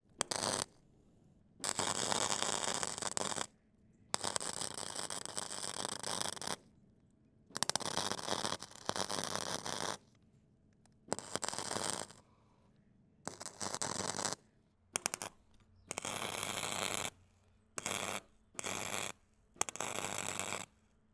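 Electric crackling sound effect for animated lightning bolts: about a dozen bursts of sparking crackle, each from half a second to two and a half seconds long, starting sharply and broken by dead silence.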